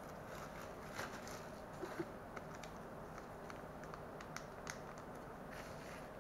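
Light crinkling and small clicks from a small plastic parts bag and a tiny screwdriver being handled, with a few sharper ticks around one and two seconds in, over a steady hiss.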